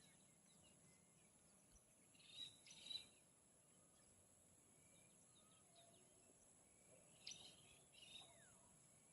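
Near silence with faint bird chirps: a few short calls about two to three seconds in and again about seven to eight seconds in.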